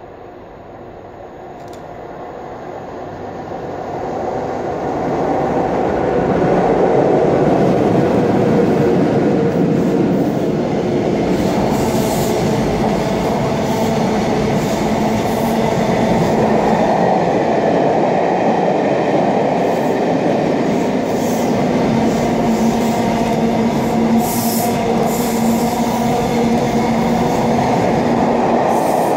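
Sleeper train hauled by a Class 92 electric locomotive passing through without stopping. The noise builds over the first six seconds as it approaches, then holds as a steady loud rush of steel wheels on rail, with sharp clicks over rail joints as the coaches run by. A steady low hum joins in the second half.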